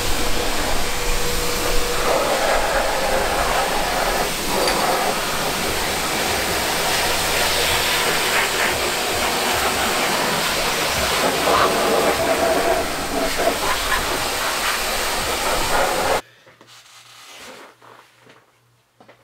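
Steady loud rushing hiss of workshop noise, with light knocks and rattles from hand work; it cuts off sharply about sixteen seconds in, leaving only a faint low room hum.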